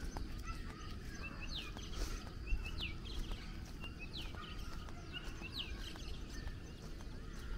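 Birds calling: one repeats a short, high, falling whistle about once a second, with smaller chirps in between, over a low steady rumble.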